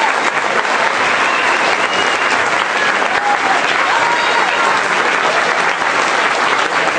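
Audience applauding steadily, a dense, sustained ovation.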